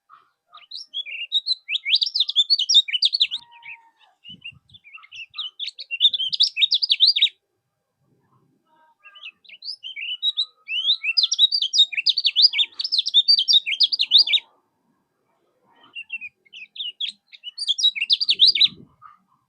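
Kecial kuning songbird singing: long bouts of rapid, high chirping and twittering notes, each lasting several seconds, broken by short pauses.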